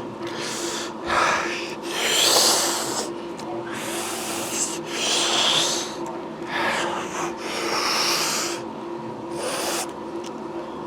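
A man breathing hard through a set of weightlifting reps: about nine forceful, rasping breaths, each lasting half a second to a second and coming roughly every one to two seconds.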